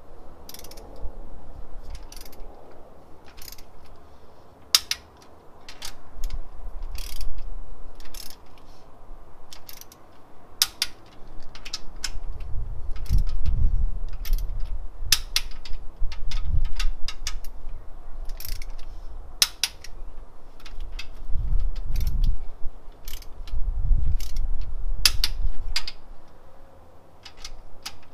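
Wrench ratchet clicking irregularly as the nuts on the top row of ARP head studs on an LS1 cylinder head are tightened to 22 foot-pounds, with dull low bumps of handling in between.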